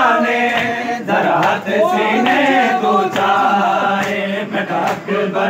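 A crowd of men chanting a Punjabi noha, a Muharram mourning lament, together in a repeated refrain. Sharp slaps of matam, hands striking bare chests, fall at uneven intervals.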